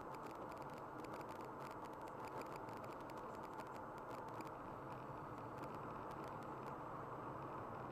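Steady road and tyre noise inside a car cruising at motorway speed, with light ticking clicks that thin out about halfway through as the car enters a tunnel.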